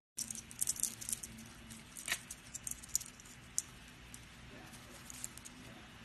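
Caique parrot on its back kicking and tossing a wooden chew toy with a plastic ball, the wooden pieces clicking and rattling together in quick, irregular taps, with a sharper knock about two seconds in.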